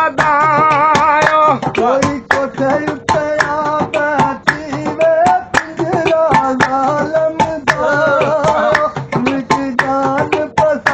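Live singing with strong vibrato, accompanied by a harmonium and frequent sharp percussion strokes.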